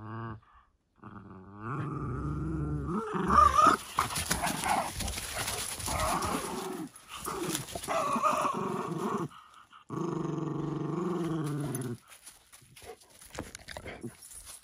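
Dogs growling in a play tug-of-war over a rope toy: long, steady growls, with a louder, scuffling stretch in the middle.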